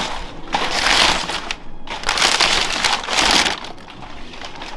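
Crumpled brown kraft packing paper rustling and crinkling as it is pulled out of a cardboard shipping box, in two long bursts that die down about three and a half seconds in.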